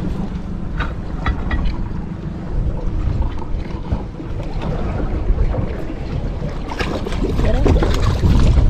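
Wind buffeting the microphone and water slapping against a small boat's hull, with a few small clicks from the fishing tackle. Near the end a hooked fish splashes at the surface beside the boat.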